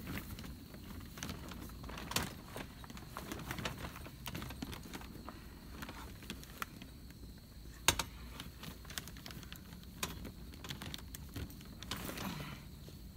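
Scattered clicks, taps and crinkles as support poles are fitted inside a plastic-sheeted pop-up greenhouse, with a couple of sharper knocks among them.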